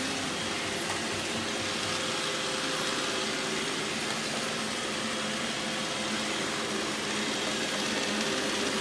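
Roomba robot vacuum running as it drives itself back to its charging dock: a steady, even hiss of its vacuum and brush motors with a faint hum.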